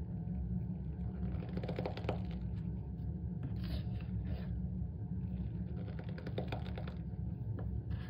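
Metal spoon scooping and pressing into dry cornstarch in a plastic tub, making squeaky, crunchy crackles that come in short bursts every second or two. A steady low hum runs underneath.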